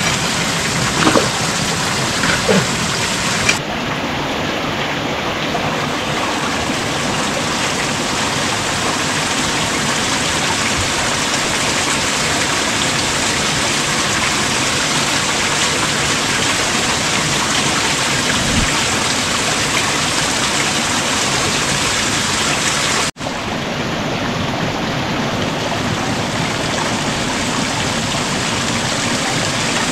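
Steady rushing water noise, even and unbroken, with a few light knocks in the first seconds. The sound drops out for an instant about three-quarters of the way through.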